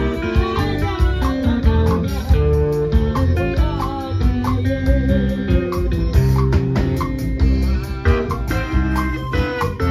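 Live band playing an old gospel song: electric guitars and bass over a drum kit and keyboard, with a woman singing over it in the first half.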